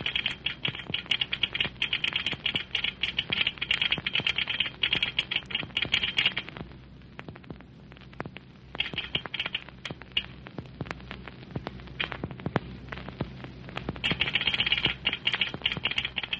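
Telegraph clicking out Morse code in rapid runs, as an agent wires the next station. The runs thin out to scattered clicks about halfway through and pick up again near the end. A steady low hum from the old recording lies beneath.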